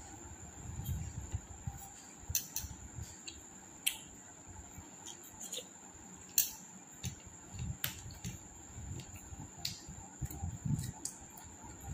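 Close-up eating sounds: chewing and mouth noises with many small sharp clicks at irregular intervals, over a steady high-pitched whine.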